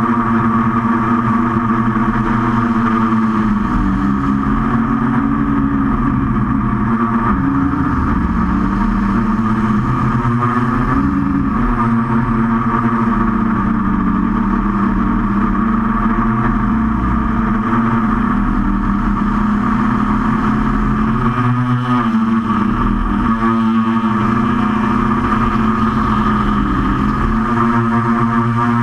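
QAV500 quadcopter's brushless motors and propellers running in flight, a steady loud buzz. Its pitch wavers as the throttle changes, around the middle and again about three quarters of the way through.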